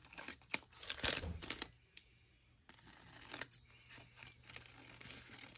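Paper and craft materials being handled and rustled, with a quick run of crinkles and light taps in the first couple of seconds, a short pause, then softer scattered rustling.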